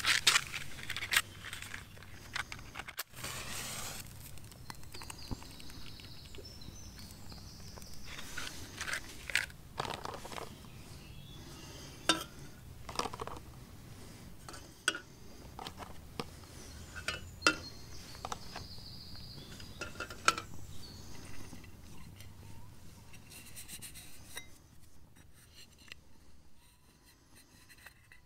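Scattered clinks, taps and scrapes of metal camp cookware being handled at a Trangia alcohol stove, including a matchbox and eggs set into a metal kettle of water. The handling sounds are busiest at the start and thin out near the end.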